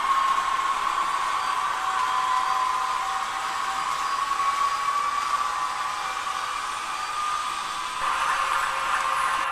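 TT-scale model train running on the layout: a steady whirring hum of the small locomotive motor and wheels on the track, dipping a little near the end before picking up again.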